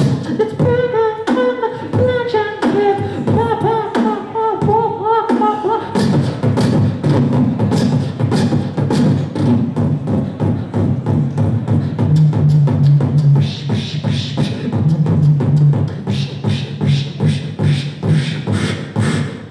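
Human beatboxing into a hand-held microphone cupped to the mouth: mouth-made drum hits and clicks keep a beat throughout. For the first five seconds or so a hummed melody glides up and down over the beat. After that a steady low hummed bass note runs under a denser beat.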